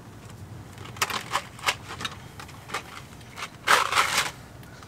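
Handling noise: a few sharp clicks and taps, then a louder scraping rustle lasting about half a second near the end.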